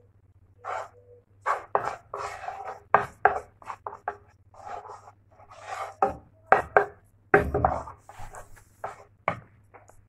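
Wooden spatula scraping and pushing melting margarine around a nonstick frying pan in quick, irregular strokes, with a few sharper knocks of the spatula against the pan.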